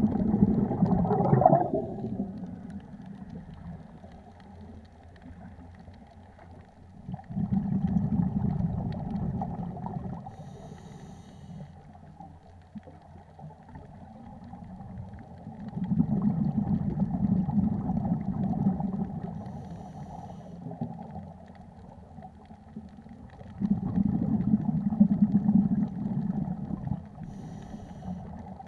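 Scuba regulator breathing heard underwater: a low, bubbling rush of exhaled air comes four times, about eight seconds apart, with quieter bubbling between and a brief faint hiss after the later breaths.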